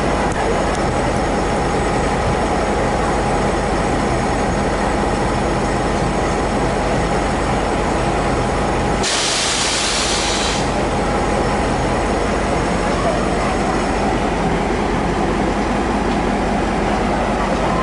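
Diesel locomotive running at low speed as it hauls freight wagons, its engine a steady drone with constant tones. About nine seconds in, a loud hiss lasts about a second and a half.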